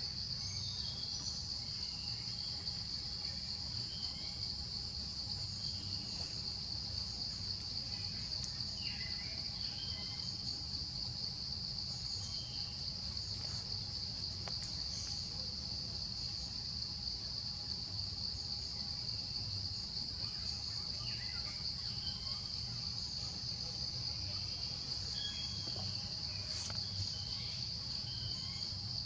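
Steady high-pitched insect chorus, unbroken throughout, with scattered short chirps over a low rumble.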